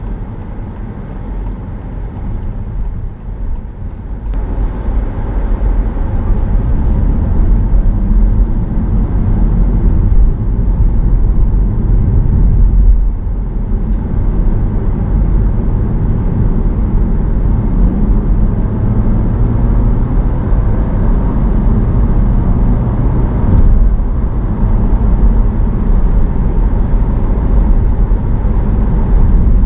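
11th-generation Honda Civic e:HEV hybrid driving, heard from inside the car: a steady low rumble of road and drive noise that grows louder about four to six seconds in as the car speeds up, then holds steady.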